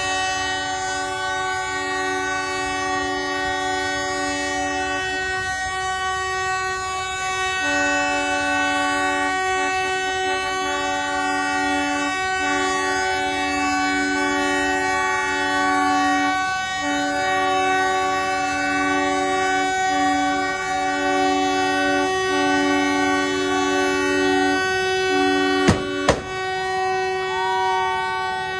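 Narrow-gauge diesel locomotive horns blowing long blasts, several tones sounding together in a chord that breaks off and starts again. About three seconds before the end a railway track detonator goes off with a sharp bang.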